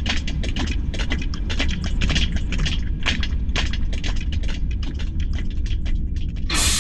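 Designed Death Star ambience: a low, steady machinery rumble under rapid, irregular clicking and ticking. Near the end a sudden loud hiss, like venting steam, bursts in.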